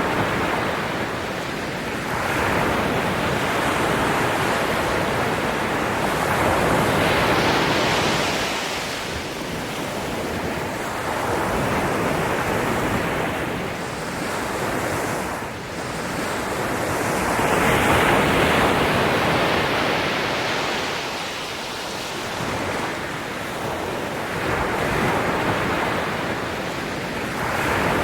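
Ocean waves breaking and washing onto the shore, the surf swelling and ebbing every few seconds.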